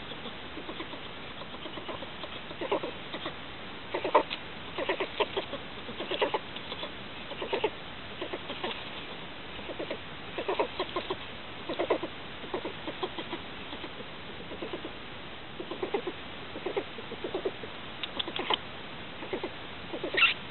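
Fisher caught in a live cage trap, making clusters of short rapid pulses, a burst every second or so.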